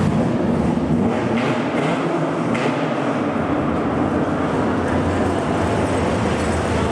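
Isuzu D-MAX Arctic Trucks AT35 pickup's diesel engine running steadily as the truck creeps slowly at low revs.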